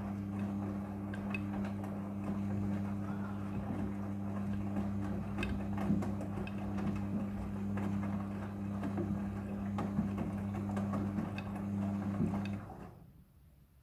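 Midea front-loading washing machine running, a steady low motor hum with scattered clicks and knocks from the tumbling drum, cutting off abruptly near the end.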